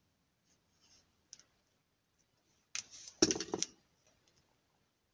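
Electrical tape being pulled off the roll and torn, a few short sharp rips close together about three seconds in, after a faint click.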